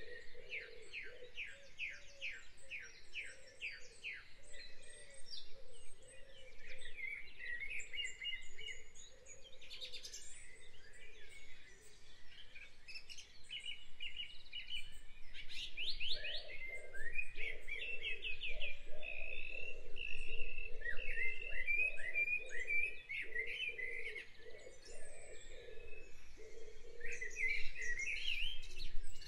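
Birdsong: several birds chirping and trilling, including fast runs of rapidly repeated chirps.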